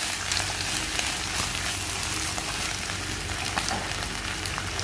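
Fresh spinach leaves sizzling and crackling steadily in hot oil with sautéed onion in a pan. A wooden spatula tosses them at the start.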